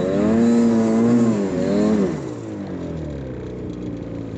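Snowmobile engine revving hard under load, climbing a steep snow slope with a sled in tow, its pitch wavering. About two seconds in the revs drop and it runs lower and quieter.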